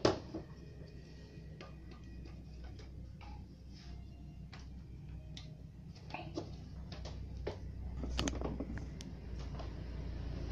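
Irregular small clicks and taps from a circuit board and soldering iron being handled during soldering, with one sharp knock at the start. A low steady rumble runs underneath and grows louder in the second half.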